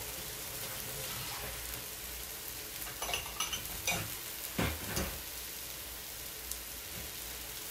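Chicken breasts sizzling steadily on a stovetop griddle, with a few light clinks and knocks from the counter in the middle.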